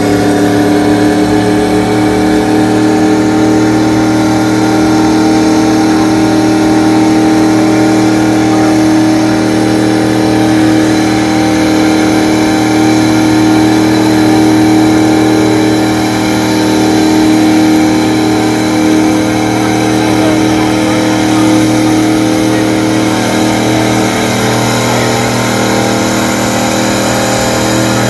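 Car engine held at high, steady revs during a burnout, after a quick rev-up just before.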